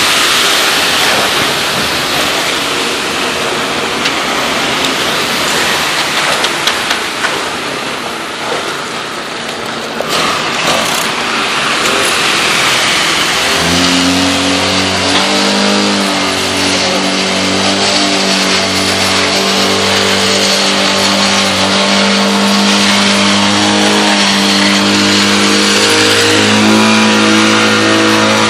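Rushing hiss of wet concrete pouring down a mixer truck's chute, with a few shovel scrapes. About halfway through, the small gasoline engine of a vibrating power screed takes over, running at a steady pitch as the screed levels the concrete.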